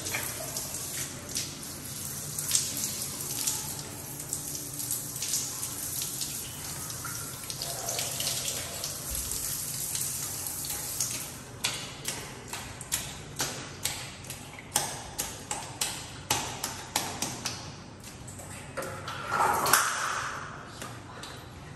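Handheld toilet bidet sprayer hissing as it sprays water onto a person and her dress, with water splashing onto the tiled floor. In the second half the flow breaks into many short, sharp splashes, and there is a louder gush near the end.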